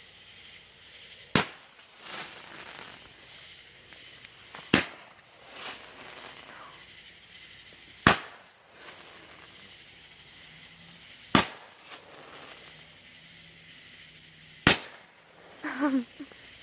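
Roman candle firing five shots at an even pace, about one every three seconds. Each shot is a sharp pop followed by a short hiss. A brief wavering pitched sound comes near the end.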